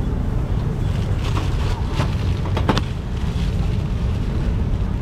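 Steady low background rumble with a few light metallic clinks around the middle, a metal ladle knocking against a stainless steel soup pot.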